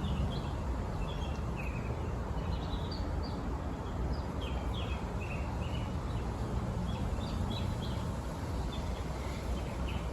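Outdoor ambience: small birds chirping in short, scattered calls over a steady low rumble of background noise.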